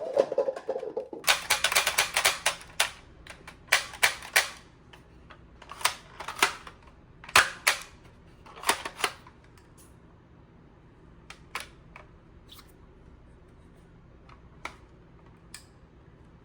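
Sharp plastic clicks and snaps from a toy blaster being handled and worked. They come in quick runs of several clicks every second or two, then thin out to a few fainter single clicks.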